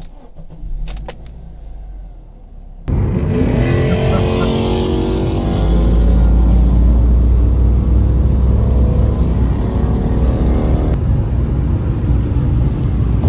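Ford Mustang engine and exhaust, starting loud about three seconds in, with the engine note falling in pitch as the car goes by, then a steady low rumble.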